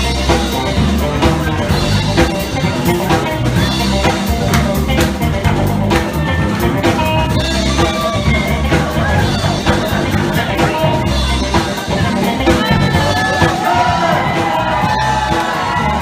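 Live band playing loud music with a driving drum beat and heavy bass. A melody line with bending notes rises over the top in the last few seconds.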